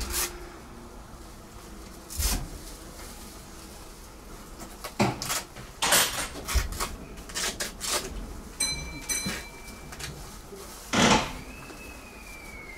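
Scattered knocks and clunks inside a stopped electric train's driver's cab as the driver settles in, with two short electronic beeps about nine seconds in. Near the end a loud knock is followed by a tone that slides slowly down in pitch.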